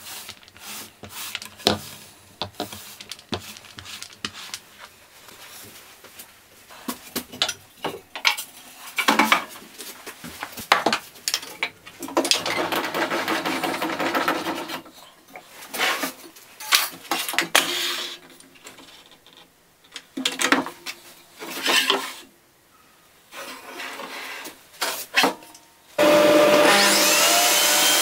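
A foam paint roller rolling over a plywood panel, then knocks and scrapes of pine stock being handled on a table saw. Near the end the table saw's motor switches on and runs up to a steady, loud run.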